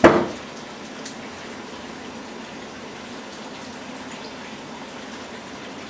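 Curdled milk and whey poured from a stainless steel pan into a fine sieve in a sink: a splash as the pour starts, then a steady run of liquid draining through.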